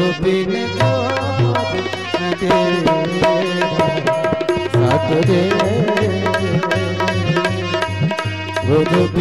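Instrumental interlude of a bhajan: tabla playing a running rhythm, its bass drum strokes bending in pitch, under sustained melodic accompaniment.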